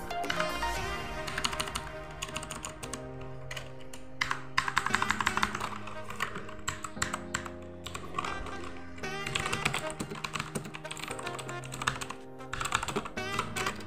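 Rapid typing on a Redgear Shadow Blade mechanical keyboard, a dense run of key clicks, over background music.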